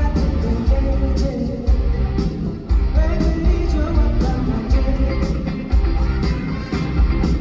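Live band playing a pop-rock song through a concert PA: drums, bass and electric guitar under a male singer's voice, with a strong steady beat.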